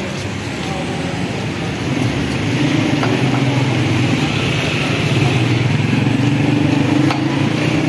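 Motor vehicle engine idling close by: a steady low hum that grows louder about two seconds in, over street noise.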